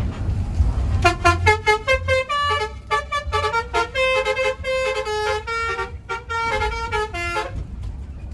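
Basuri telolet horn on a Mercedes-Benz OH1526 bus playing a quick tune of many short notes, starting about a second in and stopping near the end, over the low rumble of the bus.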